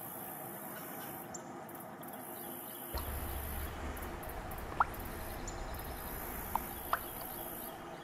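Outdoor ambience with a steady high hiss and a low rumble from about three seconds in, with three short bird chirps in the second half.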